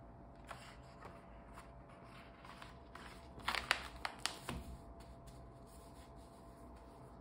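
Paper pages of an A5 sketchbook being handled and turned: a few soft paper rustles, then a short flurry of crisp paper snaps and flicks about three and a half seconds in as a page is lifted and turned over.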